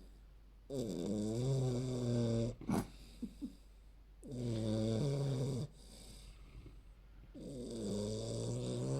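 Old English Bulldog puppy snoring loudly: three long snores, each one to two seconds, with quieter breaths between them.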